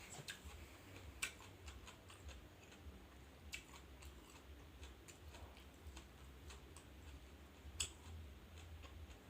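Faint close-up eating sounds: scattered crisp clicks and crunches of chewing and biting, the sharpest about a second in and again near the end, over a low steady hum.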